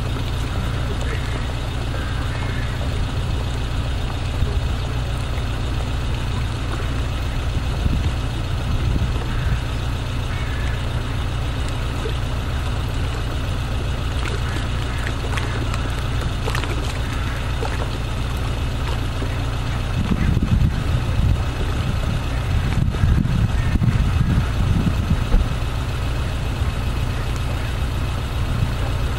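Steady low rumble of city traffic, with faint voices in the distance. About twenty seconds in, the rumble grows louder and uneven for a few seconds.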